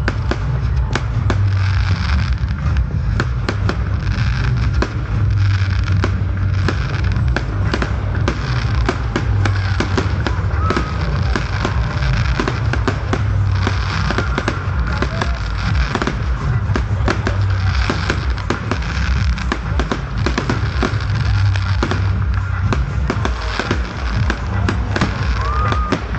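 Fireworks display: a dense, continuous barrage of bangs and crackles, one after another with no pause.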